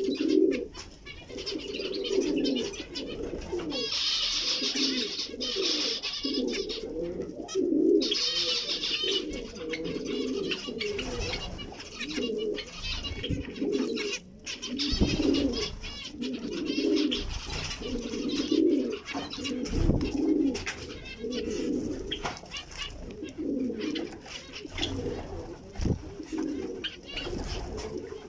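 Cage birds calling continuously. A low, cooing call repeats about once a second, with higher zebra finch chirps and chatter over it, busiest a few seconds in.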